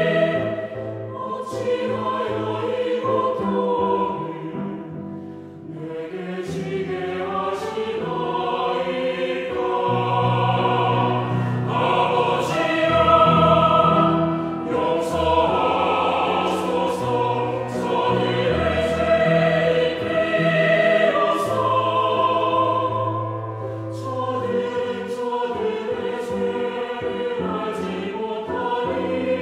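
Chamber choir singing a church choral anthem, sustained chords moving phrase by phrase, with a brief drop in loudness about five seconds in before the voices swell again.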